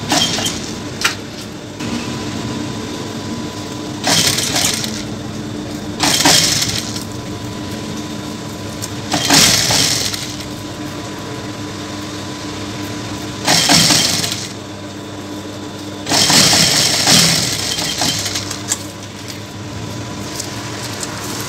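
Jack industrial sewing machine: the motor hums steadily, broken by about six short runs of fast stitching, each a second or two long, as a folded fabric strip is sewn.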